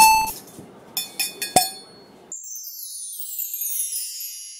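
Title-card sound effects: a bright chime rings out at the start, a few metallic clinks follow about a second in, then a shimmering sweep falls in pitch and fades away.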